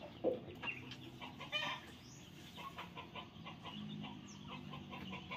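Free-range village chickens clucking quietly, a few short calls spread through.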